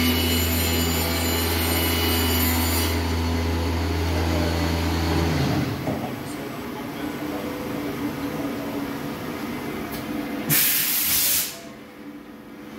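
HOMAG Profi BMG 211 CNC machining centre running: a steady low machine hum that drops away about five and a half seconds in, leaving a quieter mechanical rumble. Near the end a loud burst of compressed-air hiss lasts about a second.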